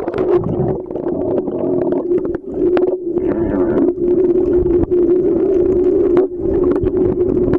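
Underwater sound: a steady, unbroken engine hum, as from a motorised outrigger boat's engine carried through the water, over muffled rumbling and crackling water noise.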